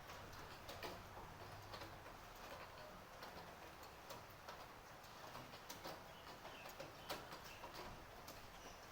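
Light rain: a faint steady hiss with irregular drips ticking through it.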